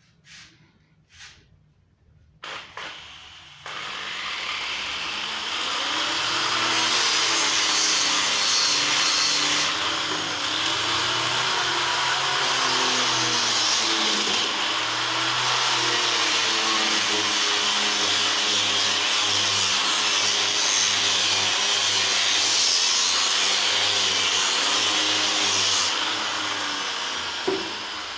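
A handheld power tool starts up after a few knocks and then runs steadily under load on wood, its motor pitch wavering up and down as it works.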